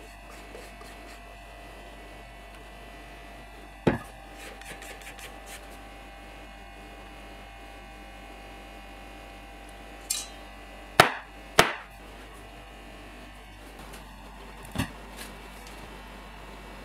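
Sharp knocks of a metal cake tin against a hard work surface. The two loudest come about half a second apart a little past the middle, with single lighter knocks before and after.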